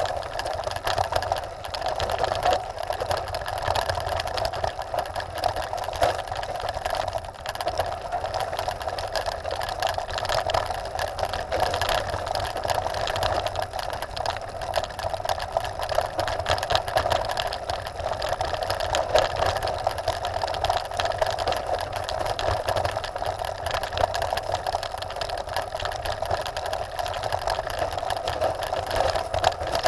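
Trek Top Fuel 9.8 mountain bike rolling fast downhill on loose gravel and stones: a steady rattling buzz of tyres crunching over the stones and the bike and its mounted camera shaking.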